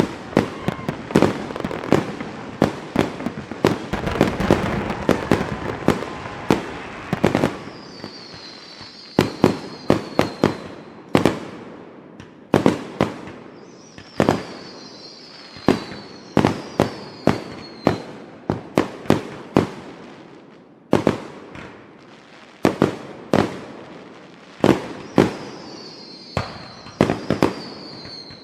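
Fireworks going off: a dense, rapid run of crackling bangs for the first several seconds, then separate bangs a second or so apart, with high falling whistles three times.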